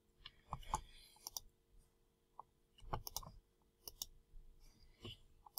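Faint, irregular clicks of a computer mouse, single and in quick pairs, as folders are picked in a file save dialog.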